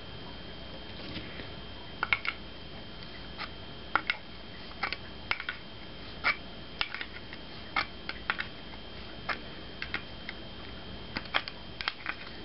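Scattered sharp clicks and ticks at an irregular pace, a couple of dozen over about ten seconds, as a brass temperature sensor with Teflon-taped threads is turned by hand into a new plastic coolant water outlet.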